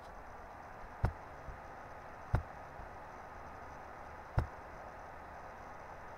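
Faint steady hiss of room tone with three sharp clicks, about one, two and a half, and four and a half seconds in.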